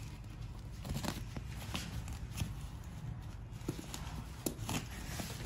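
Nylon-coated insulated delivery bag being handled by its straps: irregular soft knocks and rustling, about a dozen scattered taps.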